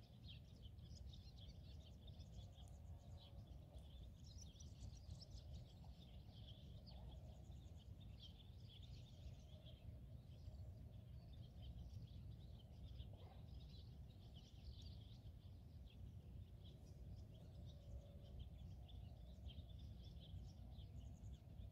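Near silence with faint bird chirping, many short calls all through, over a low steady rumble.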